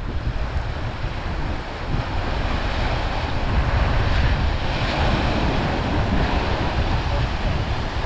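Surf washing in over a rock shelf, with wind buffeting the microphone.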